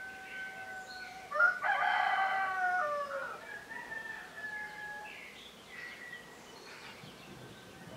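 A rooster crows once, loudly, starting about a second and a half in and lasting about two seconds, its pitch dropping at the end. Fainter, steadier held calls come just before and after it, and small songbirds chirp throughout.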